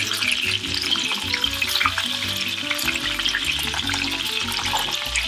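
Breaded cube steaks (chicken-fried steak) sizzling and crackling in shallow hot oil in a stainless steel skillet, being turned over with tongs.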